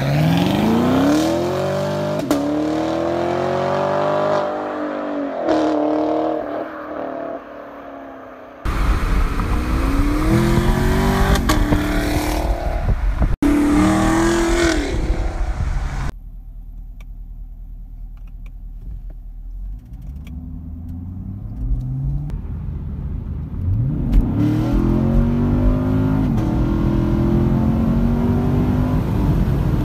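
2017 Chevrolet Camaro SS's 6.2-litre LT1 V8, through its stock active exhaust with the fuse pulled, accelerating hard several times, its pitch climbing and dropping back at each upshift. It is heard pulling away into the distance, then passing alongside with heavy wind and road noise, and then accelerating as heard from inside its cabin.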